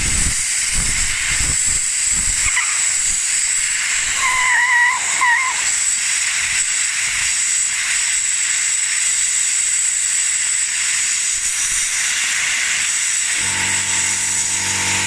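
Compressed-air blowgun blasting a loud, steady hiss through a Dyson Hot+Cool heater's perforated filter to clear holes clogged with compacted fluff. A brief wavering whistle comes in about four seconds in, and a low steady hum joins near the end.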